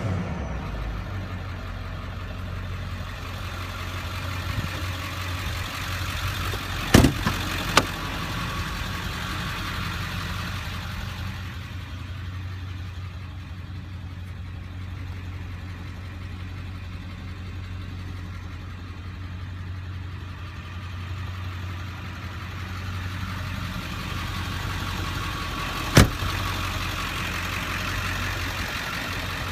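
A 2002 Ford F-350's 7.3-litre Powerstroke turbo-diesel V8 drops from a rev to idle right at the start, then idles steadily. Two sharp clunks stand out: one about seven seconds in, with a couple of smaller knocks after it, and another near the end.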